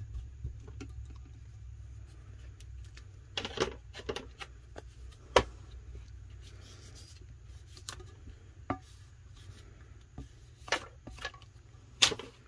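Soft rubbing and scattered clicks and taps of hands and a plastic squeegee working a decal onto a glitter epoxy tumbler, and the tumbler being moved on the table, with a sharp knock about five seconds in and another near the end, over a low steady hum.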